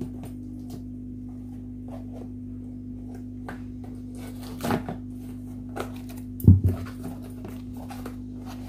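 Knife blade scraping and slitting through packing tape on a cardboard box, in scattered short scrapes and clicks, with one loud thump of the box about six and a half seconds in.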